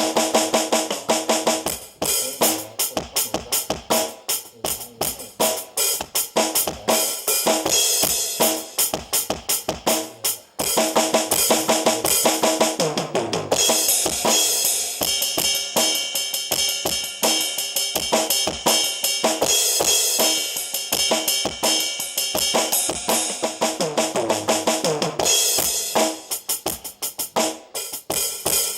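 A drum kit being played: a steady stream of kick drum, snare and cymbal strokes, with cymbals ringing on through the middle stretch and short breaks in the beat about 2 and 10 seconds in.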